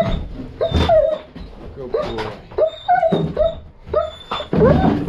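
German Shepherd giving a quick string of short, high whines and yips right at the microphone, with a few knocks mixed in; the cries crowd together and get louder near the end.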